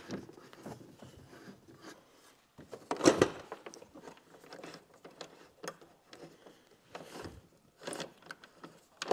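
A hand hex key turning Allen-head screws out of a motorcycle trunk-lid hinge: light, irregular clicks, ticks and scrapes of metal on metal, with a louder clatter about three seconds in.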